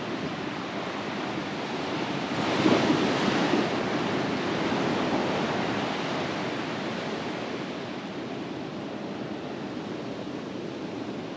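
Surf on a beach: a wave breaks about two and a half seconds in and washes up, its noise fading slowly afterwards.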